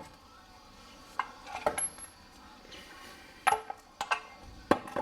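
Sharp metallic clinks, about five short strikes, some ringing briefly, as a ring spanner and small steel parts are handled while a scooter's variator cover is unbolted.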